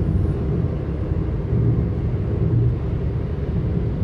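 Steady low rumble of a car cruising at highway speed: road and engine noise heard from inside the cabin.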